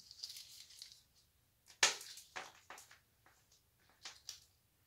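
Jewelry being handled: a few light clicks and rustles, the sharpest about two seconds in.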